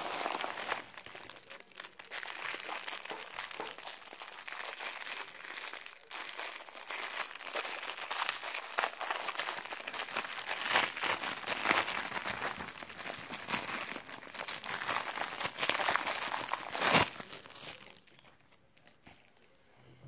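Plastic packaging crinkling and crackling as it is handled and unwrapped by hand: a white padded mailer and a clear plastic bag. A single louder crackle comes near the end, then the crinkling dies down.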